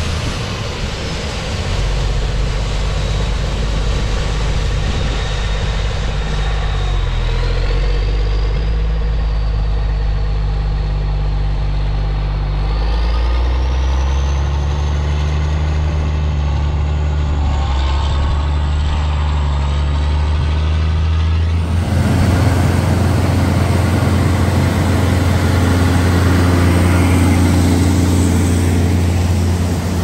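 Diesel engine of a Cat Challenger MT865 track tractor pulling a J&M grain cart, running steadily and changing speed a few times, with a faint high whine that rises partway through. About two-thirds of the way in it changes suddenly to a New Holland CR twin-rotor combine harvesting corn, a denser running noise.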